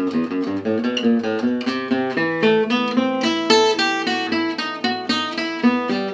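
Acoustic guitar playing a fast, unbroken run of picked single notes in gypsy jazz style, an E minor arpeggio and scale line in steady sixteenth notes.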